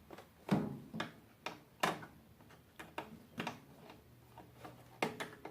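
A series of short, sharp clicks and knocks at an irregular pace, about ten in all, from an appliance and its parts being handled as it is taken apart.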